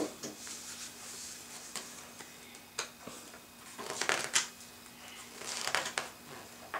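Paper pages of a book being turned by hand: two short rustles, about four seconds in and about six seconds in, with a few faint taps between. A low steady hum runs underneath.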